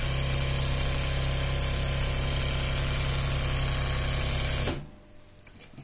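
Electric sewing machine running at a steady speed, quilting a diagonal line of stitches through fabric layered with polyester batting. It stops about four and a half seconds in, leaving only a few faint clicks.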